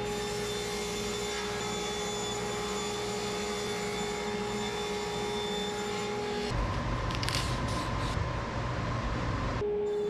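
Ridgid table saw running and ripping a sheet of 3/4-inch oak plywood: a steady motor-and-blade whine under the noise of the cut. About six and a half seconds in, the sound shifts abruptly to a lower, heavier tone, then snaps back about three seconds later.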